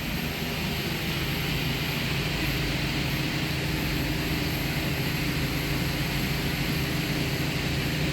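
Small air compressor running steadily with a constant rush of air, inflating a tractor tire whose bead has just been reseated on the rim.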